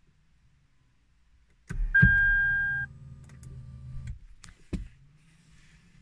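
Car interior electrics in a Lexus IS250: a click, then a low electric-motor whirr that runs for about two seconds and stops abruptly, with a steady electronic chime about a second long at its start. Another sharp click follows about half a second later.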